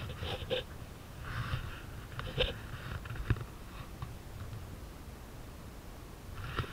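Wind rumbling on the camera microphone, with a few short faint sounds over it and one sharp click a little past the middle.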